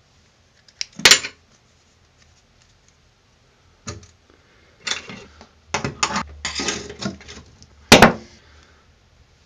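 Metal hand tools clinking and scraping against a bathtub's steel drain grate and enamel: sharp clicks, a loud one about a second in and another near the end, with a run of clatter between.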